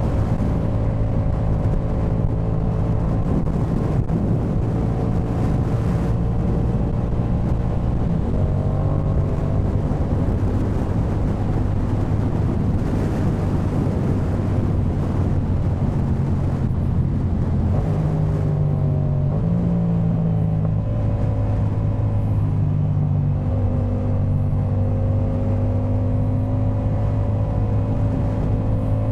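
Yamaha MT-07's 689 cc parallel-twin engine breathing through a Jeskap K4 full aftermarket exhaust, running steadily while the bike is ridden. The pitch steps down about eight seconds in and shifts up and down again around eighteen to twenty seconds.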